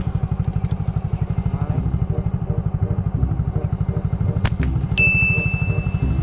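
Motorcycle engine running steadily with a rapid low putter. A sharp click comes about four and a half seconds in, then a steady high tone for about a second near the end.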